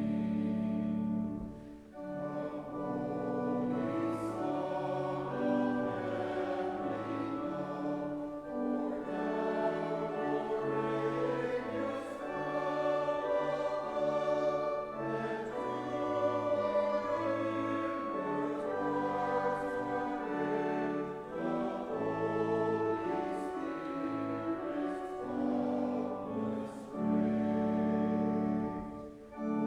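Congregation singing a hymn with instrumental accompaniment, in long held phrases with short breaks about two seconds in and near the end.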